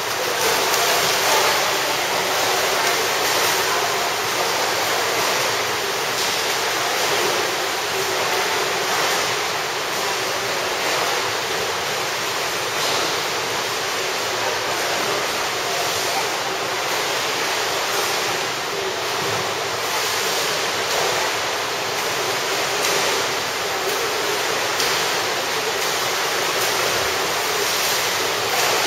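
Steady splashing and churning water from several swimmers doing freestyle strokes and kicks in a pool.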